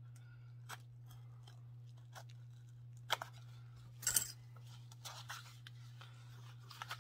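Handling noise from unboxing: soft clicks and rustles as a small knife and its box are handled and the knife is set down on the packaging, with a sharp click about three seconds in and a louder rustle a second later. A steady low electrical hum runs underneath.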